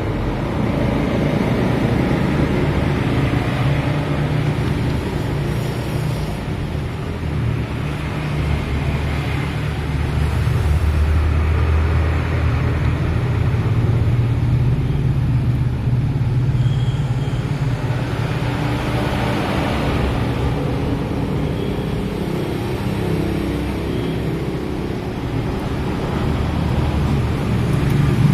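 Steady low rumble of road traffic and running engines.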